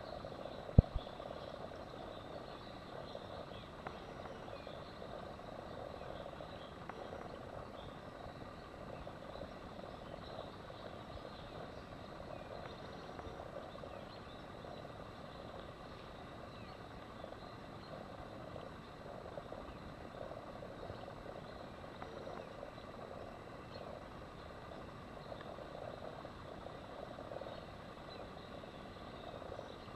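Steady outdoor background noise with one sharp click about a second in.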